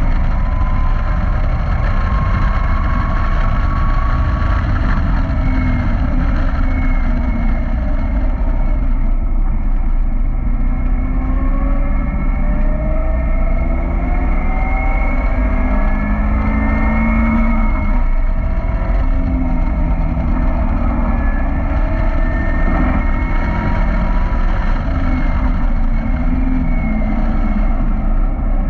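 Caterham Roadsport's engine run hard at speed, its note repeatedly rising and then dropping back at gear changes, with heavy wind rush over the open car.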